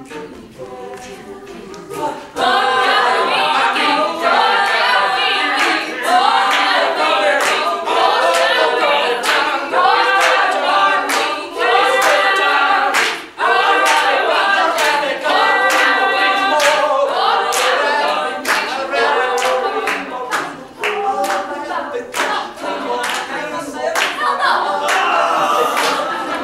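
A group of voices singing a cappella together, with hand claps keeping time; the singing comes in loud about two seconds in after a quieter start.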